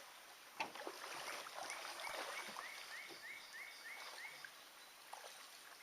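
An animal call: a quick run of about eight short, high, upward-sliding chirps at about four a second, over the steady rush of creek water. A single sharp knock comes about half a second in.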